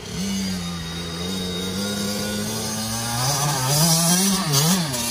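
Dirt bike engine pulling up a dirt trail, getting louder as it comes near. Its note holds steady, then rises and falls several times with the throttle over the last two seconds.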